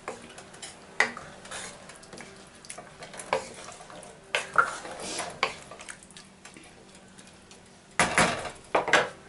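A spoon stirring rice and water in a cooking pot, scraping and clinking against the pot now and then, with a louder burst of clattering near the end.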